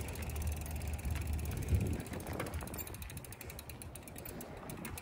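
Mountain bike's freewheel hub ticking rapidly as the bike coasts, over a low rumble, with a bump about two seconds in.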